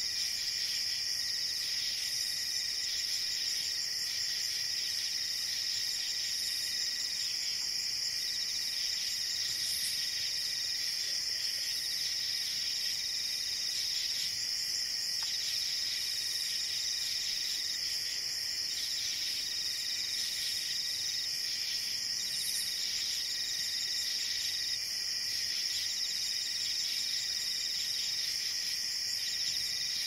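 A steady, high-pitched chorus of chirping insects, crickets by their sound, running on without a break.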